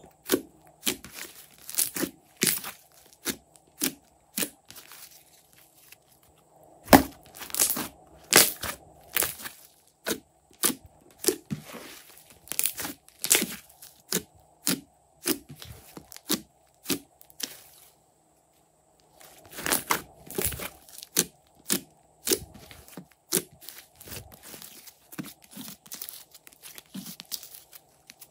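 Slime being squeezed and worked by hand, giving irregular sharp crackles and pops, several a second, with a short pause about two-thirds of the way in.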